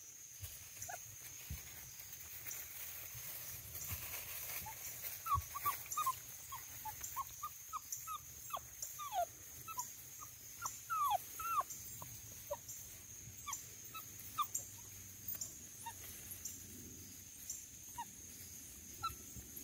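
Basset hound puppy whimpering: a long run of short, high squeaks that each fall in pitch, coming thick and fast through the middle, with a few more near the end.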